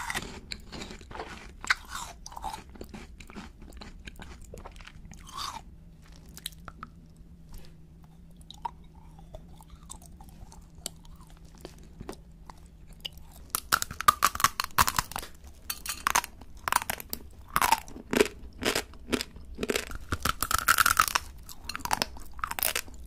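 Close-miked eating of candy and chocolate: soft wet mouth sounds and chewing at first, then, about halfway through, a run of loud crisp crunching bites and chewing.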